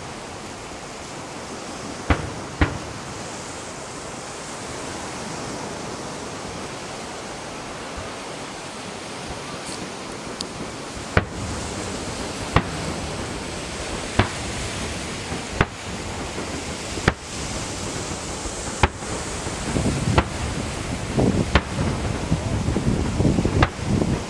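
Fireworks shells bursting in sharp bangs over a steady rushing noise: two bangs near the start, a lull, then a run of about one bang every second and a half.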